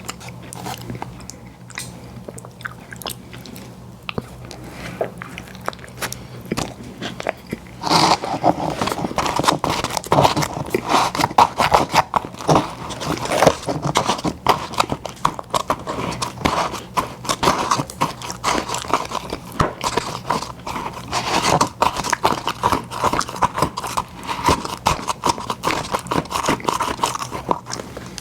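Close-miked eating of McDonald's ice cream desserts: biting and wet chewing with some crunch. It is sparse and quieter at first, then about eight seconds in becomes dense and louder, with rapid mouth clicks.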